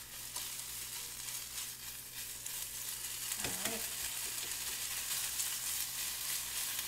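Sliced deli meat sizzling steadily in a little vegetable oil in a frying pan, stirred with a fork.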